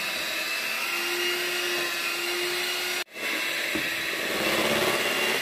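Electric hand mixer running steadily with a whine, its beaters churning chocolate cake batter. The sound breaks off for an instant about three seconds in, then carries on a little louder toward the end.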